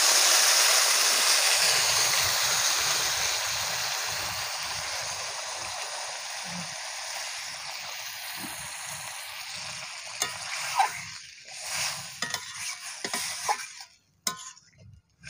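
Water poured into a hot karai of oil-fried, spiced potatoes and pointed gourd hisses and sizzles loudly, and the sizzle slowly dies away as the water takes over. Near the end come a few short knocks and scrapes.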